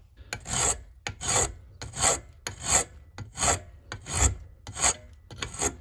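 Round hand file rasping across a small metal part clamped in a vise, in eight even strokes about every 0.7 s, rounding off its edge into a curve.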